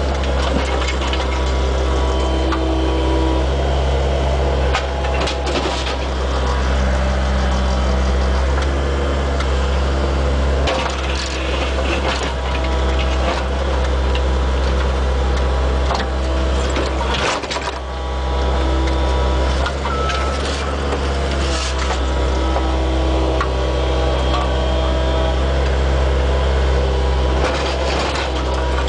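Small excavator's engine running steadily, heard from inside the cab, as its steel bucket scrapes and breaks out chunks of asphalt pavement, with sharp cracks and scrapes several times.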